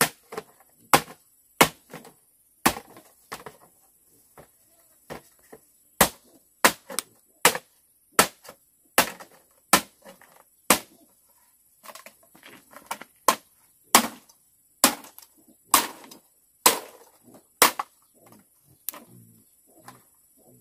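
Machete chopping at a bamboo pole: a long run of sharp, irregular knocks, about one or two a second, stopping about a second before the end.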